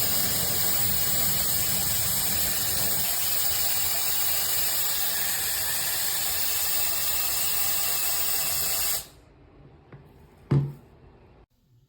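Hair dryer running, a steady rush of air with a high motor whine, switched off about nine seconds in. A single sharp knock follows about a second and a half later.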